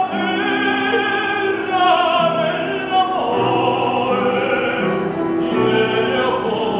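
A man singing opera in a trained classical voice, with held notes that move from pitch to pitch, accompanied on an upright piano.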